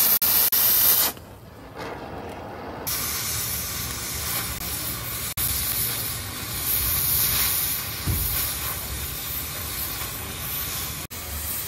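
A loud, steady hiss, like gas or air rushing out, that drops away about a second in and comes back about three seconds in, running on evenly after that. There is a single low thump about eight seconds in.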